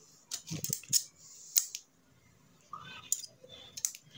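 Scattered light clicks and crinkles of fingers and a pair of scissors handling a small cut piece of tablet blister-pack foil, about eight sharp clicks in all.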